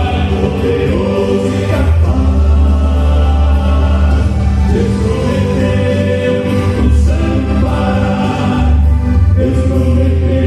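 Vocal quartet singing a gospel hymn in harmony, with held notes over musical accompaniment.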